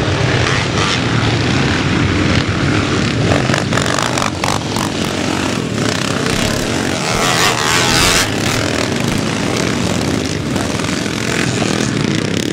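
Engines of several classic motocross bikes racing on the circuit, running hard and changing pitch as they rev, swelling to their loudest about seven to eight seconds in.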